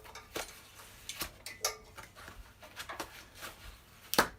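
Scattered clicks, scrapes and short squeaks of a packed part being worked loose from styrofoam packing, with one sharp knock near the end.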